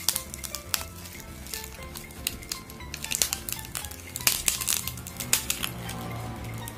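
Crackling and sharp clicks as the cracked screen of a Huawei P9 lite is pried away from its frame against very strong double-sided tape. The crackles come thickest a few seconds in, over steady background music.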